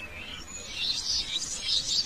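Several birds chirping and warbling in rainforest ambience, in quick clusters of high notes that grow louder about a second in and again near the end.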